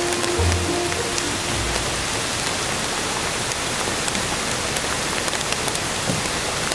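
Steady heavy rain falling on a wet wooden deck, an even hiss with single drops ticking through it.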